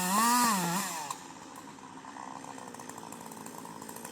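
Chainsaw engine running steadily, faint and even, starting as a voice fades out about a second in.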